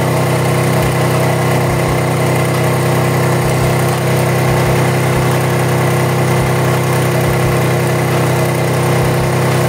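Suzuki Intruder motorcycle engine running steadily at idle, turning the front pulley of a newly fitted belt-drive kit with no belt on yet.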